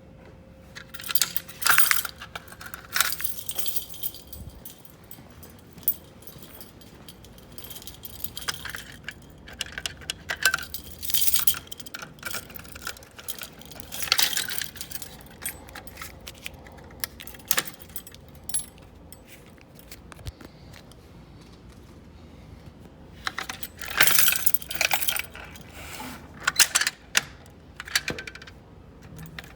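Small metal pieces jingling and clinking in irregular bursts, loudest about two seconds in and again about three-quarters of the way through.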